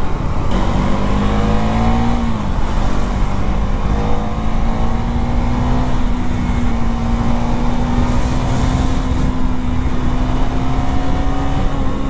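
KTM 390 Duke's single-cylinder engine running on the move, its note dipping briefly about two seconds in and then holding and rising slowly.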